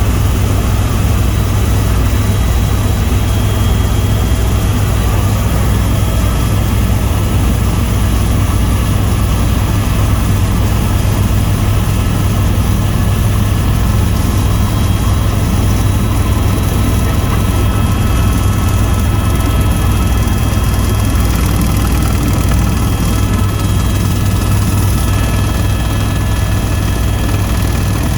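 Tour helicopter in steady flight: a loud, unchanging drone of rotor and engine, deepest at the low end, with several constant high whining tones above it.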